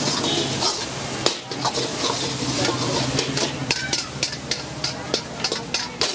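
A steel ladle scraping and clanking against a black wok as fried rice is stir-fried and tossed, over a steady sizzle. The clanks come more often in the second half.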